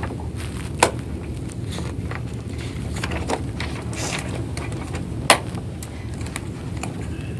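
Steady low hum of a courtroom recording, with faint rustles and a few sharp taps, the sharpest about a second in and about five seconds in, as printed pages are handled.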